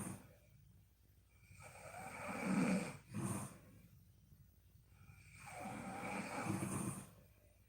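A sleeping woman snoring: two long snores about four seconds apart, the first followed at once by a short, sharper burst, with quiet breathing between them.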